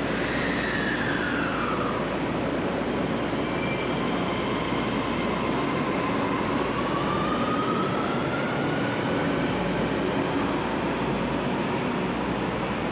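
Electric metro trains moving through a station. A motor whine falls in pitch over the first two seconds as a train slows, then rises again from about six seconds in as a train pulls away, over a steady rumble of wheels on rails.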